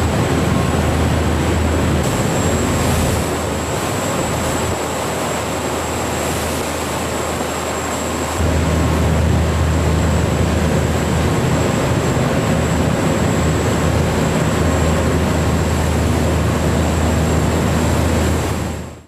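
Boat engine running steadily under way, a low hum under wind and water hiss. The mix shifts abruptly a few times and fades out at the end.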